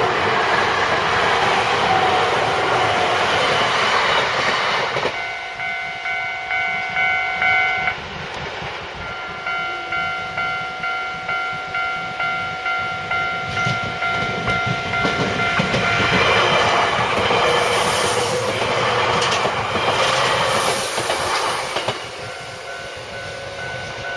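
A Nankai electric train running over a level crossing with wheels clattering. As it clears, the crossing's warning bell starts dinging in a steady repeated pattern, about one and a half strokes a second. A little over halfway through, another train passes over the crossing while the bell keeps ringing.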